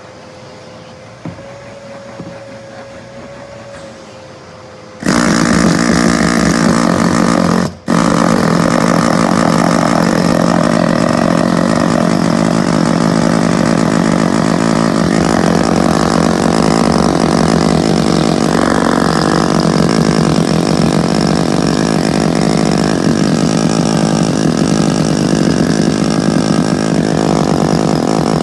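Pneumatic air chisel with a rubber cap hammering car carpet to shake loose fine dirt, with a vacuum cleaner running alongside. The loud noise starts suddenly about five seconds in, cuts out for an instant a few seconds later, and then carries on; before it there is only a low steady hum.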